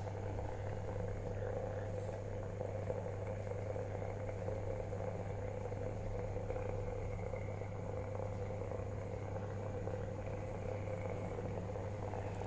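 MCP 3-in-1 electric steam vaporiser running and boiling its water into steam, giving a steady low hum.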